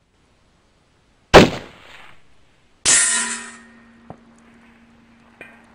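A 6.5 Creedmoor rifle (Savage 12 FV) fires one shot. About a second and a half later the bullet strikes a steel target plate, which clangs and keeps ringing with a steady tone for several seconds.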